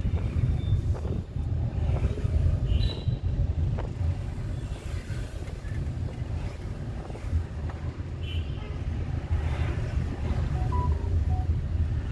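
Low, steady rumble of a Maruti Suzuki car's engine and tyres, heard from inside the cabin while driving slowly, with a couple of faint short high sounds about three and eight seconds in.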